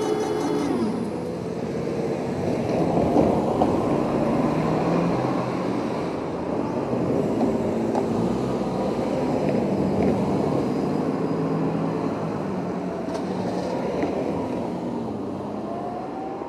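A level crossing's electronic warning bell (Tōbu-style tone) cuts off about a second in. Steady vehicle noise follows, with engine tones rising and falling and a few light knocks.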